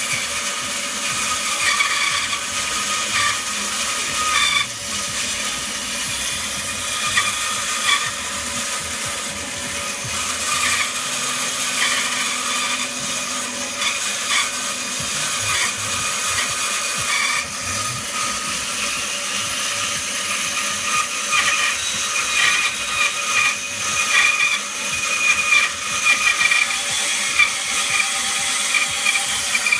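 Bandsaw running and cutting into an Air Arms S400 air rifle: a steady, dense hiss with faint whining tones and small uneven changes as the blade works through.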